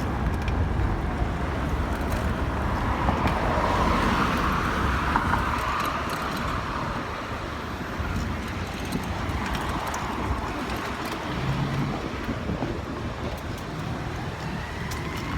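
Road traffic going by on a city street, with one vehicle passing loudest about four to five seconds in.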